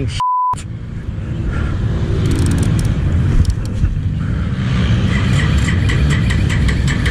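A short steady censor bleep at the very start, then an ATV engine running with a steady low rumble that grows a little stronger near the end.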